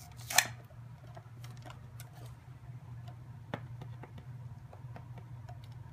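Scattered light clicks and taps of a Lalaloopsy Littles doll box being worked open by hand, with a sharper click about half a second in and another about three and a half seconds in.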